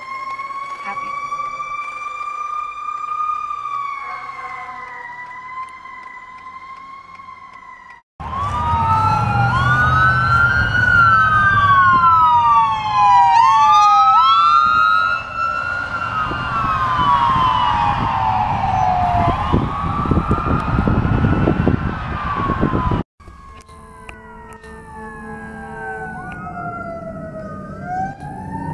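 Emergency vehicle sirens in three clips. First a fire ladder truck's slow wail, heard from inside a car, fading. Then, about eight seconds in, a much louder ambulance siren sweeping quickly up and down over a heavy rumble of engine and road noise. After a cut, a fire engine's wail falls and then rises again near the end.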